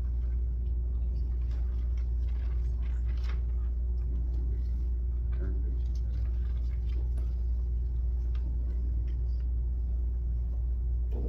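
Steady low rumble with a faint steady hum above it, unchanging throughout.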